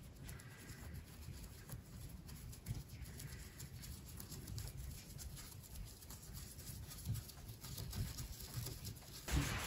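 Faint scratching and light clicks of a thin wooden stick working wax into the crevices of a carved wooden bed crown, over low handling rumble. A louder steady hiss comes in near the end.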